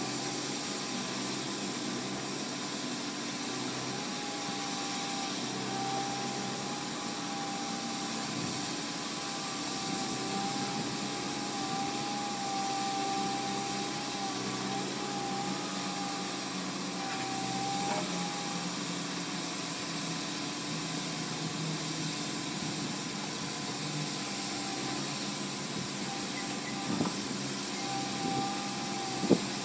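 Wheeled walking (spider) excavator running steadily, its engine and hydraulics giving an even mechanical hum with a wavering whine over it. Near the end, two short sharp knocks.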